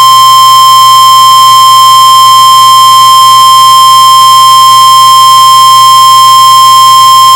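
NOAA Weather Radio 1050 Hz warning alarm tone: one long, loud, steady tone announcing a severe thunderstorm warning broadcast.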